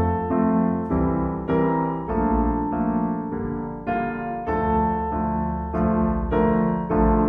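Background music: piano chords played at an even, moderate pace, a new chord struck about every half second to second.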